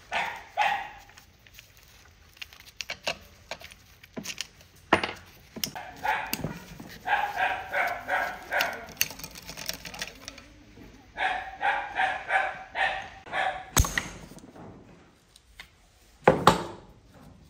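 A dog barking in two long runs of quick barks, about three a second. Between and after them come sharp metal knocks and clanks, the loudest near the end.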